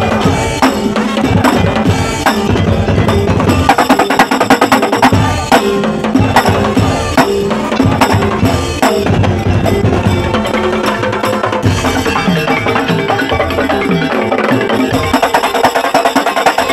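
Madurese daul (tong-tong) music played loud by a percussion ensemble. Fast, dense drumming and wooden knocks run over sustained, ringing pitched tones.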